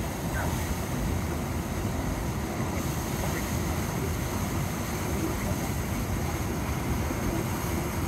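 Steady rush of churning white water from a man-made standing surf wave.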